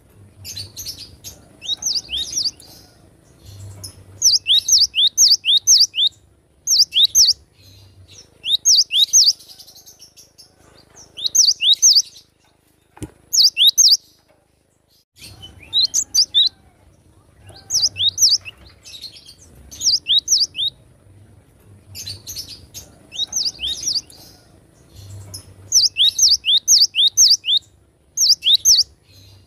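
Cinereous tit (gelatik batu) singing: repeated phrases of three to five high, downward-sweeping whistled notes, coming every second or two. There is a single click about thirteen seconds in, then a short pause before the song resumes.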